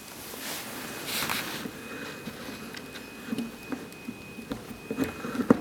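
Handle of an HP3805B heat press being unscrewed by hand: a rough scraping as the threaded handle turns, then a few light clicks and knocks of metal parts.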